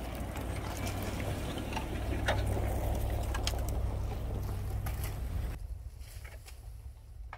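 Toyota Land Cruiser 100-series engine running steadily at low speed as the truck drives through snow: a low drone with scattered crunches and cracks from the tyres and snow. About five and a half seconds in it drops away as the truck moves off.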